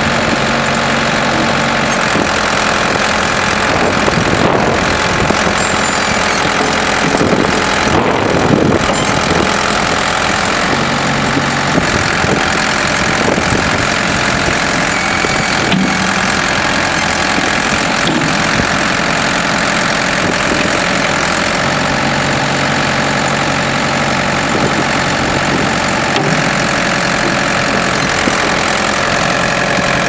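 Ford 655A backhoe's 4.2-litre four-cylinder diesel engine running steadily while the backhoe boom and bucket are worked, with a lower note coming and going in spells.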